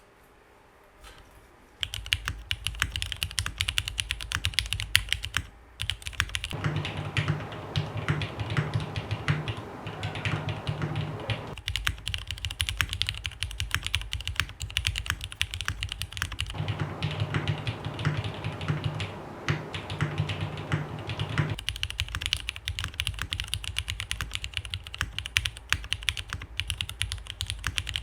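Continuous typing on a TGR Jane Monokei Edition mechanical keyboard with Cherry MX Black linear switches in an aluminium case with an O-ring mounted plate, under Leopold keycaps. The typing starts about two seconds in, pauses briefly, then runs on as a fast stream of key clicks. The owner finds the case very resonant, to the point of sounding a bit too boomy.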